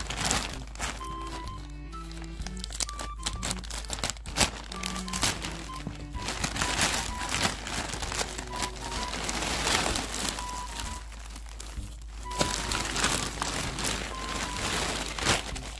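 Thin plastic packaging bag crinkling and rustling irregularly as hands handle it, over background music with a simple stepping melody.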